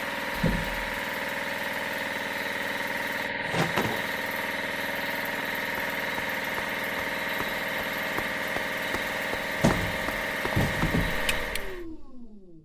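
Radial drilling machine's motor running with a steady hum of several fixed tones, with a few short thumps along the way. Near the end the hum falls in pitch and dies away as the machine winds down.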